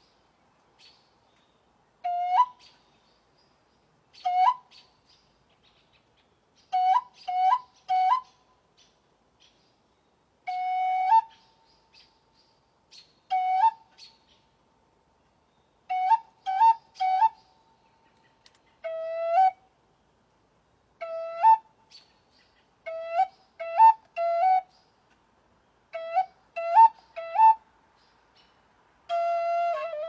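Wooden end-blown flute playing short notes, each scooping upward at its start, in single notes and quick runs of two or three with pauses of a second or two between. Faint bird chirps fall in some of the gaps.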